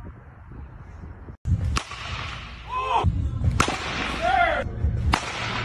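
Baseballs struck with a softball bat, three sharp cracks about a second and a half apart.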